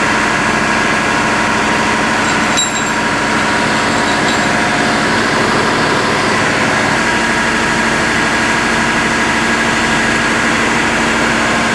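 A running engine's steady drone with several fixed tones in it, unchanged throughout, and one short sharp clank about two and a half seconds in.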